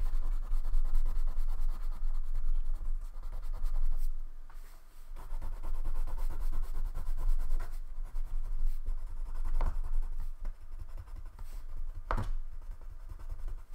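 Wax crayon scribbling back and forth on paper, colouring in a large area, with a brief lull about four seconds in and a short tap near the end.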